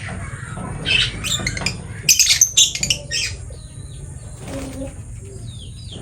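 Lovebird chirping: a cluster of sharp, high calls about two seconds in, then softer short chirps.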